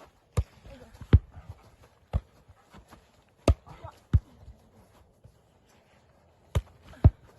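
A series of about seven sharp thumps at uneven intervals, with faint sounds in between.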